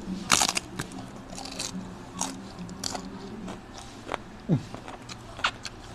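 Crunching bites and chewing of a dry, crisp cassava flatbread (salbaro), close to a clip-on microphone. There is one loud crunch about a third of a second in, then a run of smaller crunches through the rest.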